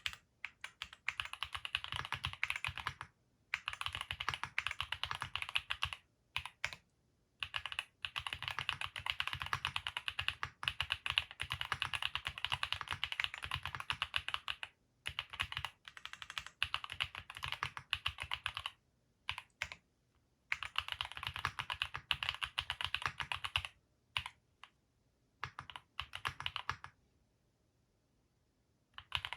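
Fast typing on a Vertex Arc60 custom mechanical keyboard with Haimu Sea Salt linear switches: runs of rapid keystrokes broken by short pauses, with a pause of about two seconds near the end.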